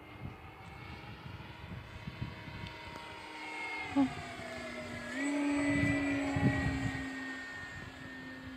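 Small RC foam airplane's motor and propeller whining steadily in flight; about four seconds in the pitch drops as the throttle eases, then just after five seconds it steps up higher and louder as power is added, the tone bending as the plane passes by.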